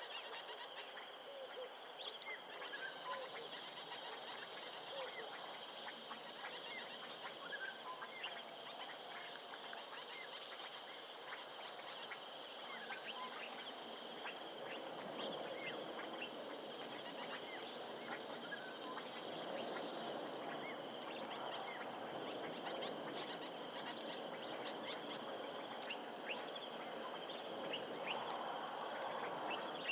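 Insects shrilling steadily in a high, evenly pulsing trill, with scattered short bird chirps and calls over a rural waterhole ambience; a softer, rougher chorus, such as frogs, swells in the second half.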